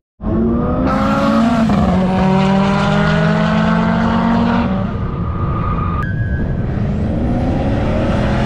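Roll-racing cars accelerating hard down the straight. The engine note climbs, drops at gear changes and climbs again.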